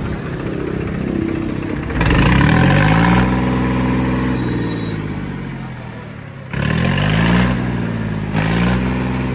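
Farmtrac 45 Smart tractor's three-cylinder diesel engine running and being revved: a sharp rise about two seconds in that sinks back slowly, then two shorter blips of the throttle near the end. The mechanic is checking how much fuel the pump delivers before turning it up, because the tractor feels sluggish.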